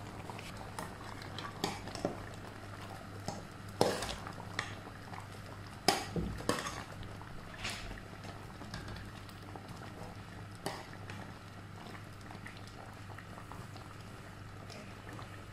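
A metal spoon stirring a pot of simmering mung bean soup, clinking and knocking against the metal pot several times in the first eight seconds, loudest about four and six seconds in, over the soup's steady bubbling.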